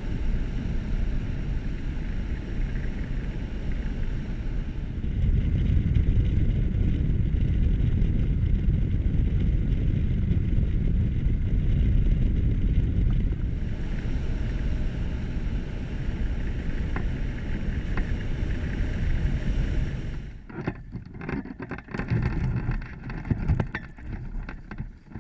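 Wind noise on the microphone of a hang glider in flight: a steady low rush of air, louder for several seconds in the middle. About twenty seconds in, the rush drops away as the glider lands, leaving uneven bumps, scuffs and short gusts.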